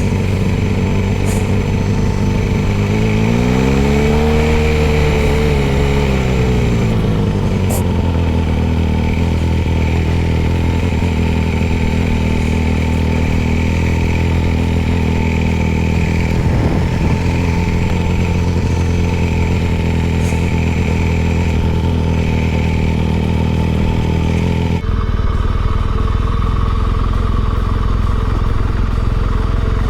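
Motorcycle engine running while riding, its pitch rising and falling once a few seconds in as it revs up and eases off. Near the end the sound changes abruptly.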